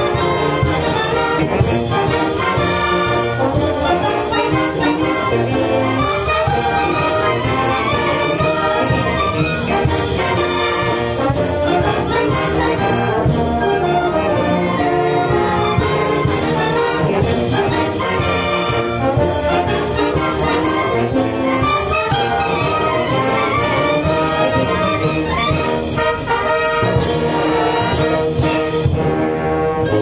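A full wind band of brass and saxophones plays a march at a steady beat.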